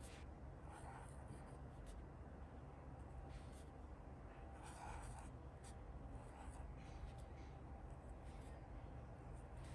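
Faint scratching and rustling of pen and paper while a planner is worked on: short scattered strokes, with two slightly stronger rustles about a second in and around the middle, over a low steady hum.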